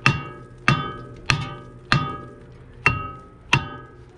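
Copper-and-hide mallet striking a brake disc about six times, roughly one blow every two-thirds of a second, to knock the stuck disc off its hub. Each blow leaves the metal disc ringing briefly.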